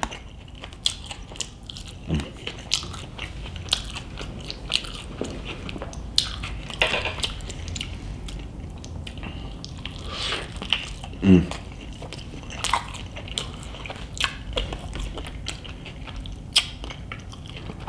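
Close-miked chewing of a cheesy chicken burrito: soft, wet mouth sounds with many small clicks and lip smacks.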